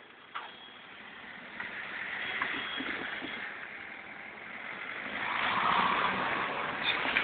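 A vehicle passing close by: a rushing noise that builds over several seconds and is loudest about two-thirds of the way in.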